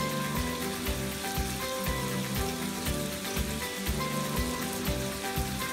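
Chicken pieces sizzling as they brown in oil in a frying pan, under background music with a steady beat.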